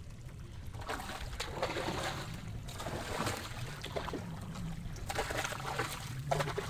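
Water sloshing and splashing around a small boat's hull in irregular spells, over a low steady rumble.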